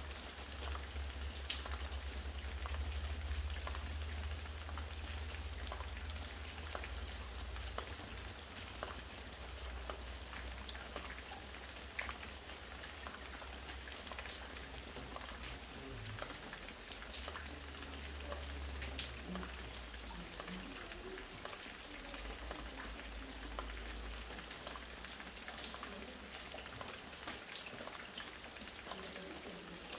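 Fine rain falling steadily, with many individual drops and roof drips ticking through the hiss. A low rumble comes and goes underneath.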